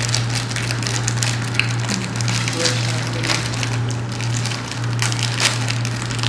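Plastic snack-cake wrapper crinkling and crackling as it is handled and torn open by hand, a dense run of small rapid crackles, over a steady low hum.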